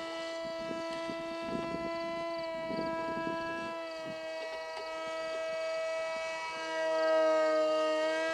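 Electric motor and propeller of a foam radio-controlled MiG-29 model in flight: a steady whine that holds its pitch and gets louder near the end.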